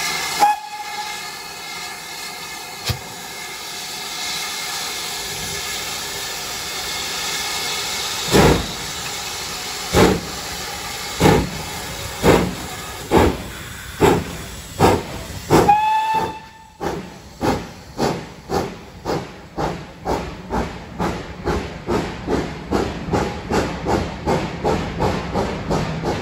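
GWR Manor-class 4-6-0 steam locomotive 7812 Erlestoke Manor starting a train at full power: steam hissing at first, then heavy exhaust chuffs begin about a third of the way in, slow at first and quickening steadily to about three a second. A brief whistle toot sounds about midway.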